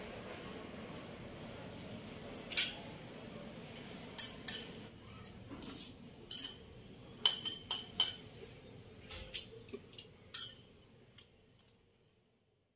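Metal spoon clinking against a steel dish of fried rice: about a dozen sharp, ringing clinks at irregular intervals, the first and loudest about two and a half seconds in, after a faint steady hiss.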